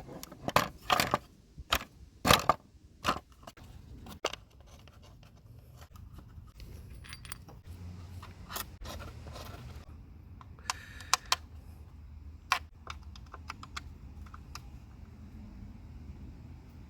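Hand tools and small metal parts being handled: a run of sharp clinks and knocks in the first few seconds, then scattered lighter clicks and rattles.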